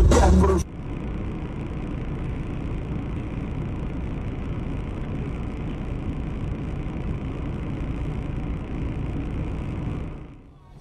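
Steady low rumble of a car's engine and cabin noise picked up by a dashcam microphone, with a faint steady hum and no impact heard. It follows a loud stretch of voices and music that cuts off under a second in, and it fades out near the end.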